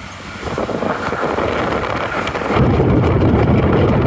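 A steady rushing noise, then about two and a half seconds in a sudden jump to loud, low wind buffeting the microphone.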